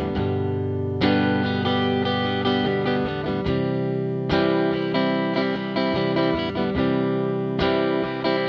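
Background music led by a guitar, its notes and chords struck in a regular rhythm.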